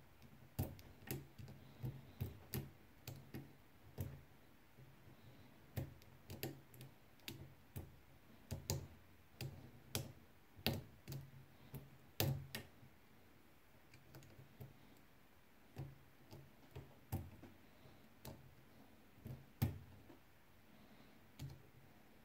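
Light, irregular clicks of a lock pick working the pins inside a 4-pin ABUS CISA euro profile cylinder, coming in scattered clusters with short pauses, some clicks louder than others.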